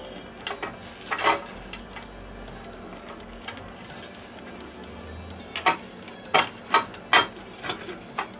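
Thin aluminium cover plate of an electric hotplate clinking and clicking against the stove's base and terminal rods as it is fitted down into place, with a quick run of sharp metallic clicks in the last three seconds.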